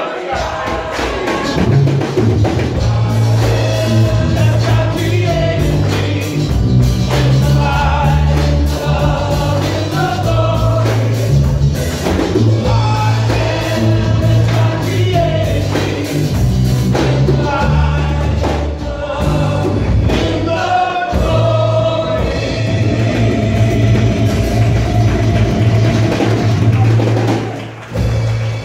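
Church music team performing a worship song live: singing over drums and a deep bass line that moves from note to note.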